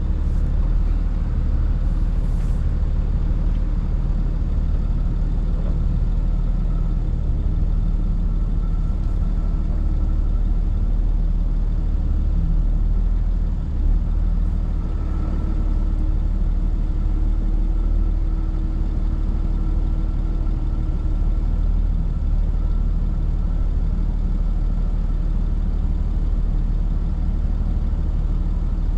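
Tow truck engine running steadily at a low rumble, with a faint higher whine coming and going in the middle.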